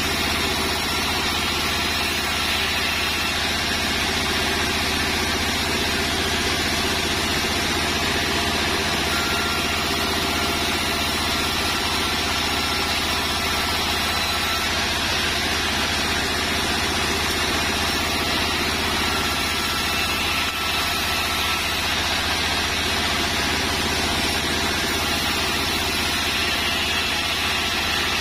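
Large sawmill band saw running steadily, its blade ripping a sengon board lengthwise into battens, with a constant machine drone and no pauses.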